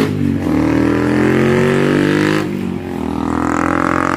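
A motorcycle engine accelerating through the gears: its pitch climbs steadily, drops at a shift about two and a half seconds in, and climbs again.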